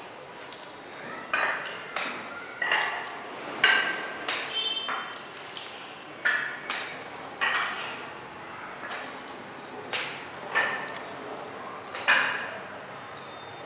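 Spiked epoxy overshoes stepping on a freshly coated floor: sharp irregular clacks about once a second, some with a short metallic ring.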